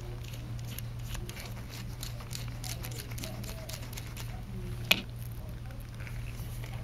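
Handling noise from gloved fingers turning the knurled rings of a differential micrometer head: small scattered metal ticks and rubbing over a steady low hum, with one sharper click about five seconds in.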